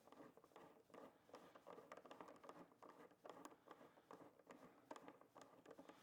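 Faint, rapid, irregular ticking and scraping of a hand tool turning out one of the headlight mounting screws.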